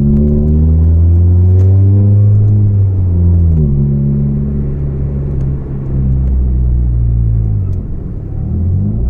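Volvo 440 engine running under way through a broken, leaking exhaust, with a loud, deep note. Its pitch drifts down, shifts about three and a half seconds in, and rises again near the end.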